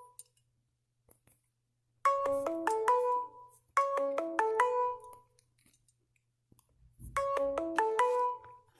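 Old mobile phone alarm tone: a short melody of about eight quick chime-like notes, played twice back to back, then again after a pause of about two seconds.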